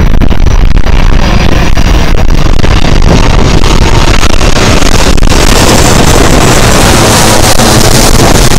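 Strong wind buffeting the action camera's microphone: a loud, steady low rumble with gusty hiss.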